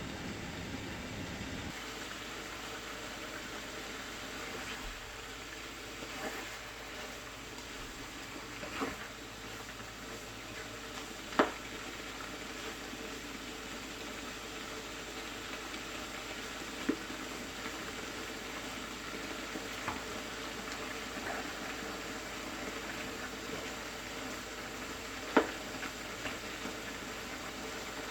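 Meat sizzling steadily as it fries in a pan, with a few short sharp knocks, the loudest about a third of the way in and again near the end.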